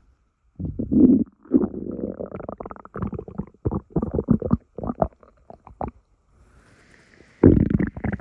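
A person's stomach rumbling and gurgling. A low growl comes about half a second in, then a long run of rapid bubbling gurgles, a faint lull of over a second, and another loud growl near the end.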